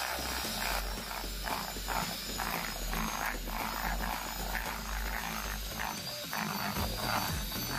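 Electric hand mixer running at a steady whine, its beaters churning a crumbly chocolate cake mixture of flour and cocoa and rattling irregularly against a stainless steel bowl.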